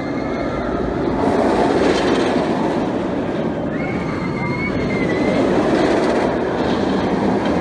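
A roller coaster train rumbling along its track, with a high squeal held for about a second midway.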